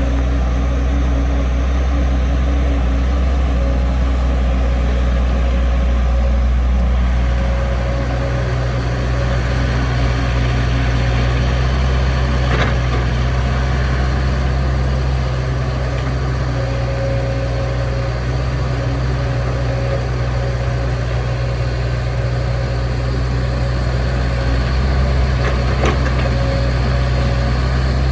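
Heavy diesel engine running steadily with a deep, even note that shifts slightly about seven seconds in.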